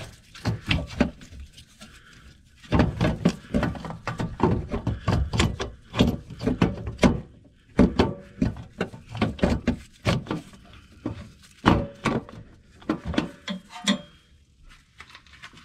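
Irregular metal knocks, clunks and scrapes as a replacement starter motor is worked up into its mounting place under a 1996 Toyota 4Runner, bumping against the engine and chassis.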